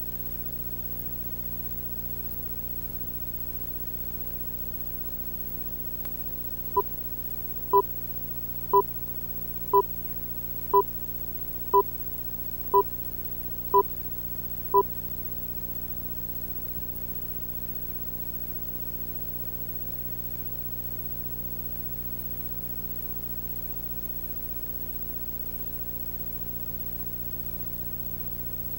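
Countdown leader beeps: nine short beeps one second apart, counting down, over a steady low hum and hiss.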